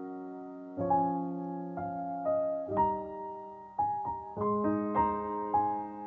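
Soft background piano music: single notes and chords struck every half second to a second, each ringing on and fading.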